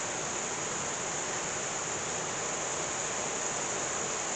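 Heavy thunderstorm downpour: rain falling hard and steadily as an even hiss, with no thunder or other sudden sounds.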